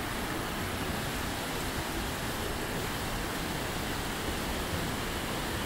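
The Zambezi River rushing through white-water rapids beneath Victoria Falls, a steady unbroken rush of water.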